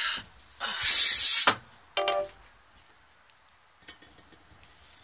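Handling noise: a sharp knock, a loud scraping hiss about a second long, then a short metallic clink about two seconds in.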